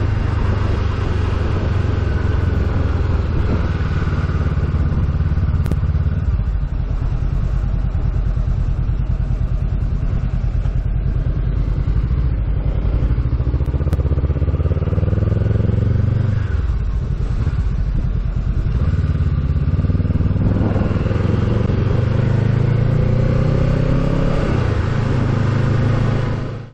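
Motor vehicle running on the road, with a steady low rumble of engine and road noise; the engine note rises twice in the second half as the vehicle accelerates.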